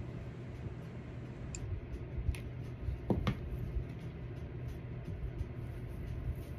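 Faint handling noise: a few soft clicks and rustles as hands work a hot glue gun and press dry Spanish moss into place, over a steady low hum.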